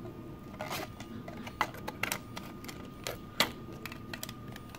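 Irregular clicks and taps of a circuit board knocking against a 3D-printed plastic case as it is handled and fitted in, the sharpest about three and a half seconds in.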